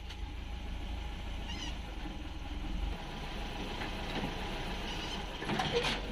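Tata 407 SFC CNG truck's engine running at idle with a steady low drone, in gear with the clutch released to test a newly fitted clutch plate. A few short knocks near the end.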